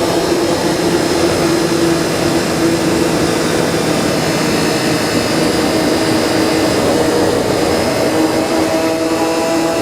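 Triumph Daytona 675R inline-three engine running at steady cruising revs under a constant rush of wind noise, with no revving up or down.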